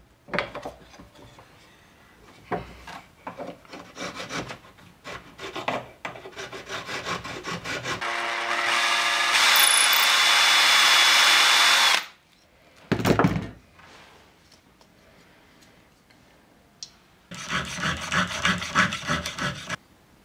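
Cordless drill running steadily for about four seconds, drilling out a hole in a wooden knife handle to open it up a little. Before it come light knocks and scraping from handling the work. Afterwards there is a thump, then near the end a couple of seconds of fast scraping strokes.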